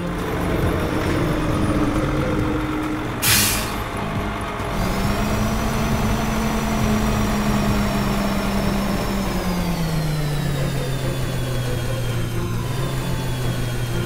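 Heavy truck sound effects: an engine running, a short air-brake hiss about three seconds in, then a steady engine whine that drops in pitch about ten seconds in.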